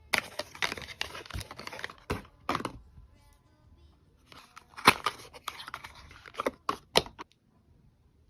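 Packaging being torn open and crinkled by hand while unboxing a makeup order, in two bouts of crackly tearing and rustling with sharp clicks, the loudest click near the middle.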